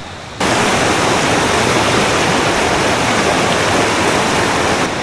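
Loud, steady rushing of jungle stream water, an even hiss with no pitch. It cuts in abruptly about half a second in and drops back suddenly near the end.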